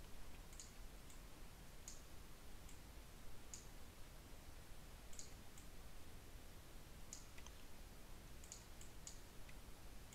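Faint computer mouse clicks, about fifteen short, sharp clicks coming irregularly, as the cursor samples and paints with Photoshop's Clone Stamp Tool.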